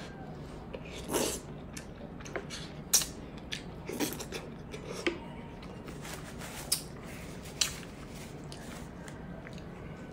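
Close-up eating sounds: chewing and biting into stewed pork hock, with a scattering of short wet smacks and sharp clicks about a second apart over a low steady hum.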